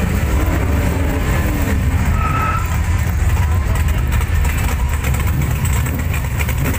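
Modified street cars' engines idling in a loud, steady low rumble as they creep slowly past in a queue.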